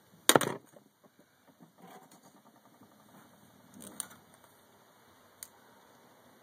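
A sharp knock about a third of a second in, then a few faint clicks and light scraping.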